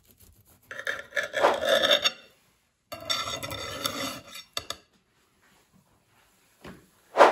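Serrated bread knife sawing through a pan-baked apple cake: two rasping stretches of cutting, each about a second and a half, followed by a few light clicks.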